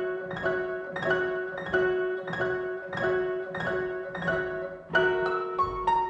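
An 1808 Broadwood fortepiano played solo in waltz time: a repeating figure of struck notes and chords, with a new, louder chord about five seconds in.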